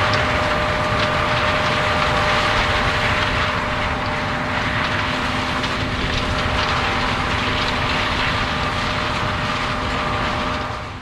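Heavy harvest machinery running steadily, a loud, even mechanical drone with a steady whine in it; it drops away sharply just before the end.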